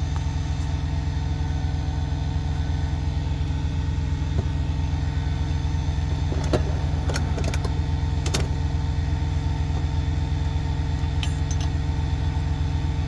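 A truck's diesel engine idling steadily, with a few light clinks and clicks about halfway through.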